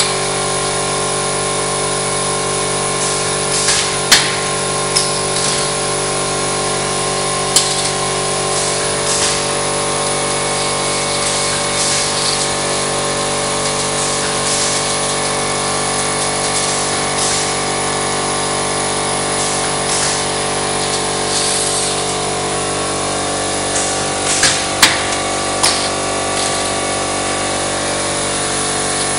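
Roll forming machine for Knauf-type drywall steel profiles running with a steady mechanical whine made of several held tones. Short hissing bursts recur, and a few sharp clicks stand out, the loudest about four seconds in and twice near the end.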